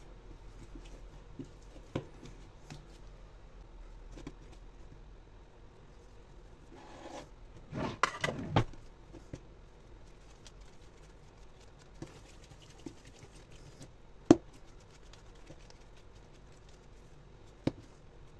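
Hands working bread dough on a stone countertop: soft rubbing and patting as pieces are torn off and rounded into balls, with scattered knocks as dough is pressed or set down, a cluster of them around 8 seconds in and the sharpest near 14 seconds.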